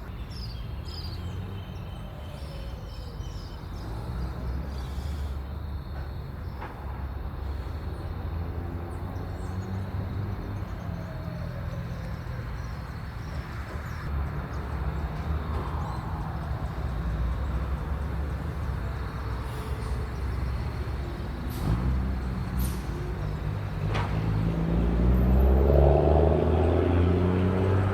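Low rumble of a motor vehicle engine running, growing louder and rising in pitch near the end.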